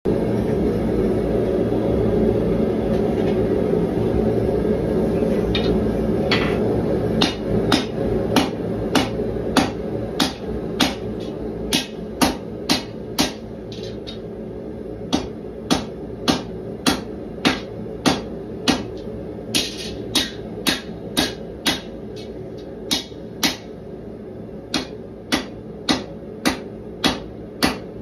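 Hammer blows on a red-hot 1095 steel knife blank on an anvil. The sharp strikes start a few seconds in and settle into a steady run of about two a second, with a couple of brief pauses. Under them is a steady rush that is loudest in the first few seconds.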